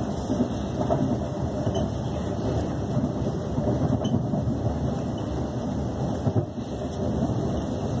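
Steady running rumble heard inside the carriage of a Class 350 electric multiple unit as it travels along the track, with a few faint clicks.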